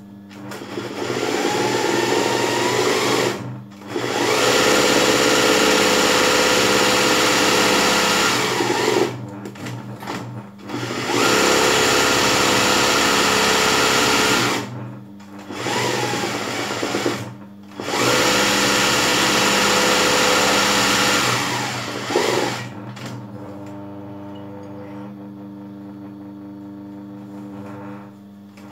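Sewing machine stitching free-motion satin-stitch embroidery on fabric in a hoop. It runs in spurts of a few seconds and stops briefly several times as the hoop is repositioned. For the last few seconds it gives way to a quieter, steady hum.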